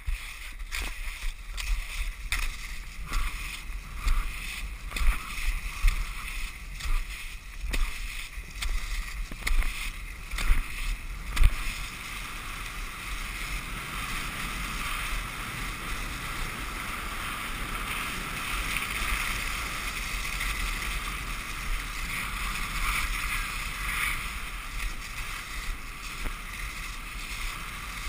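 Cross-country skis sliding on packed snow during a downhill run. For the first dozen seconds there are irregular knocks and scrapes as the skier pushes off; after that comes a steady hiss of the skis gliding, over a low wind rumble on the microphone.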